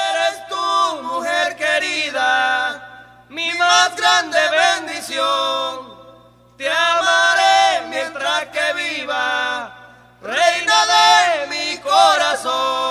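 Singing without accompaniment: four long chant-like vocal phrases separated by short pauses, over a faint steady low hum.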